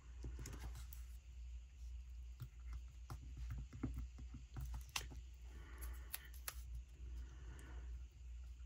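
Paper stickers being handled: an ice cream cone sticker peeled off its sheet and pressed onto a planner page, heard as faint rustles and scattered light clicks over a low steady hum.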